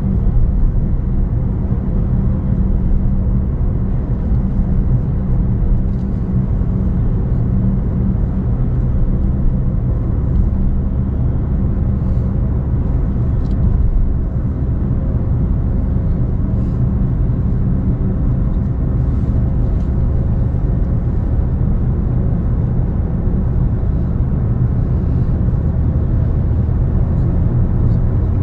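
Steady drone of a road vehicle moving at constant speed: a low engine hum over road noise, unchanged throughout.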